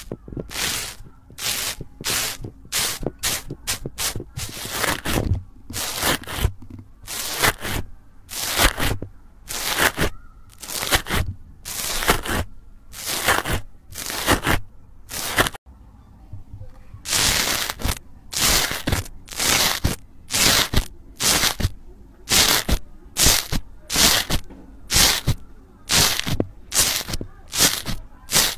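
Slime in a tub being pressed again and again with a metal stamp, each press a short squelching crunch, about one to two a second. The presses pause briefly about halfway through, then carry on at the same pace.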